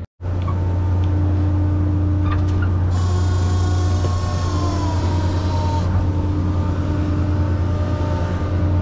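Fishing boat machinery running with a steady, loud, low drone. A higher hiss joins from about three to six seconds in.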